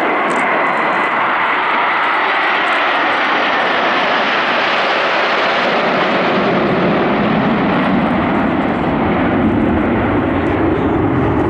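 Formation of Su-27 fighter jets flying low overhead, a loud steady jet engine noise. It is high-pitched as they approach and drops to a deep rumble from about halfway through as they pass and move away.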